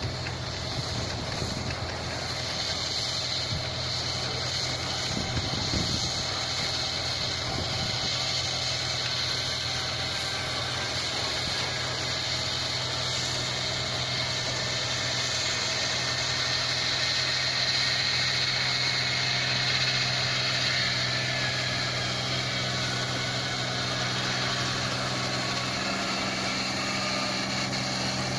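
Hino diesel engine of a John Deere rice combine harvester running steadily at an even speed.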